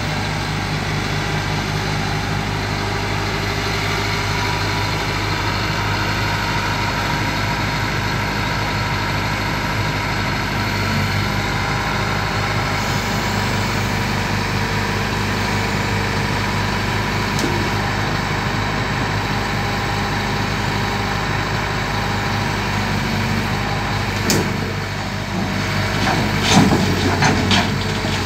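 Kobelco SK220XD LC crawler excavator's diesel engine running steadily as the machine swings and works its way down off the back of a lowbed trailer. Near the end comes a quick series of knocks.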